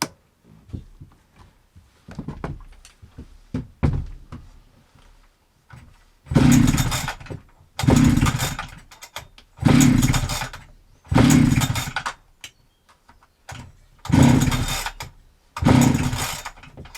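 Husqvarna 365 X-Torq two-stroke chainsaw being pull-started. A few handling clicks come first, then six hard pulls on the recoil starter about a second and a half apart. The engine turns over on each pull but never catches: it has no spark, which the owner suspects is a failed ignition coil.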